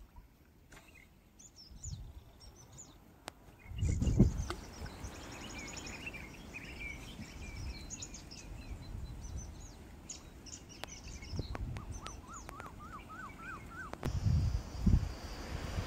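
Birds calling and chirping, with short high trills and a run of quick rising notes near the end. Low rumbling bursts come about four seconds in and again near the end.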